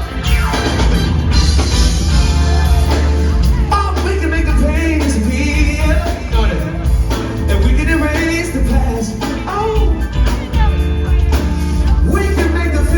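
Live pop band playing with a heavy bass and a steady beat, while a male singer holds wordless vocal runs over it.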